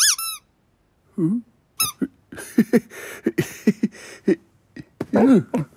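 Cartoon voice effects: short, high squeaks that fall in pitch from a small animal, at the start and again just before two seconds in. Then a man giggles in a quick run of short chuckles for about two seconds, and a lower falling vocal sound comes near the end.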